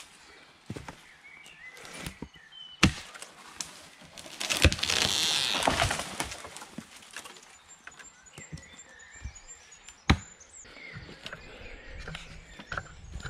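Axe chops into a small tree's trunk, the sharpest about three seconds in; the tree then breaks and falls, its branches swishing and crashing through the foliage for a couple of seconds. One more sharp knock comes about ten seconds in.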